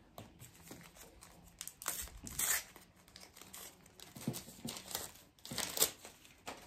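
Foil trading-card packet being torn open and its wrapper crinkled in the hands: irregular crackling rustles, loudest about two and a half seconds in and again near six seconds.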